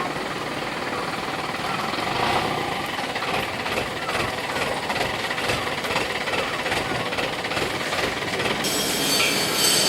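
A GY-200-1A engineering drilling rig running with a steady, dense mechanical clatter. A little before the end, a high metallic squeal joins in.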